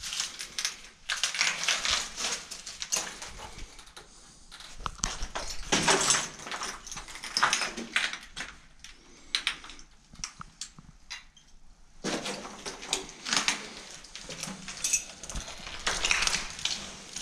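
Footsteps crunching and scraping over grit and rubble on concrete stairs and floors, in several bursts with short pauses between.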